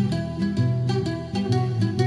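Background music: quick plucked-string notes over a steady bass line.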